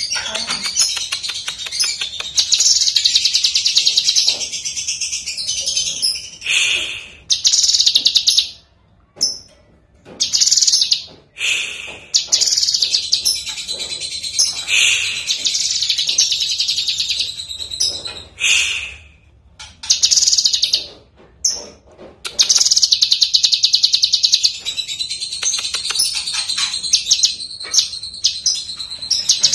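Caged cucak kinoi leafbird singing a loud, fast, chattering song in long runs broken by short pauses, ending in an unbroken run over the last seven seconds or so.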